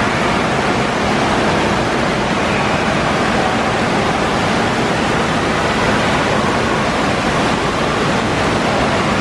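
Steady rush of splashing water: fountain jets pouring into an indoor water park's lazy river and the water churning around it.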